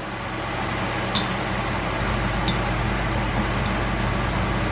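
Shrimp fried rice sizzling in a hot wok as it is stirred, a steady frying hiss over a low hum, with a few light clicks of the cooking spoon against the wok.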